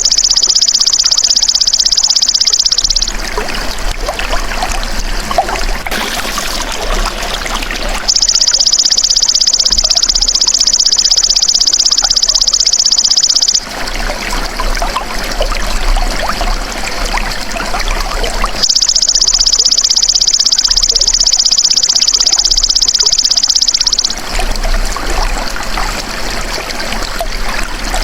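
Belalang emas (golden grasshopper) singing a loud, high-pitched buzzing trill in spells of about five seconds, breaking off for several seconds at a time while trickling water is heard alone.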